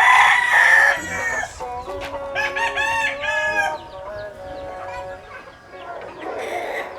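Gamefowl roosters crowing: a loud, harsh crow in the first second, then another crow of several arching notes a couple of seconds in.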